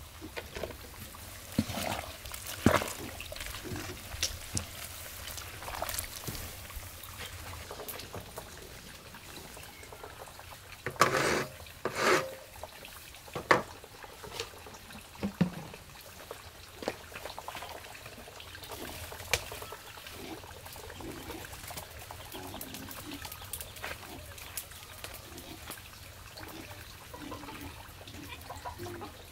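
Large steel wok of hot water being stirred as a yellow meal is mixed in: liquid sloshing and trickling, with scattered knocks of the wooden paddle and a louder clatter about eleven seconds in.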